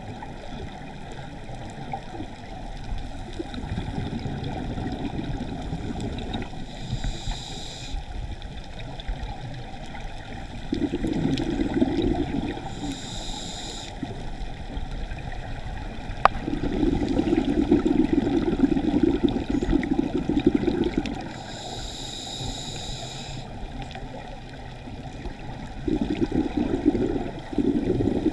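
Scuba diver breathing through a regulator underwater. A short hissing inhale comes about three times, and each is followed a few seconds later by a longer bubbling rush of exhaled air. A single sharp click comes near the middle.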